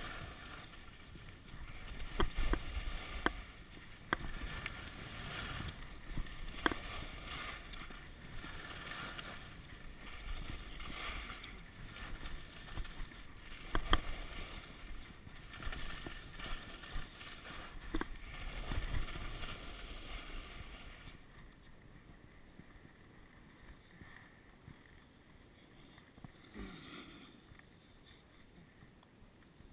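Skis sliding and scraping over packed snow, with wind on the microphone and scattered sharp knocks. The sliding noise drops away about two-thirds of the way through, leaving a quieter rustle.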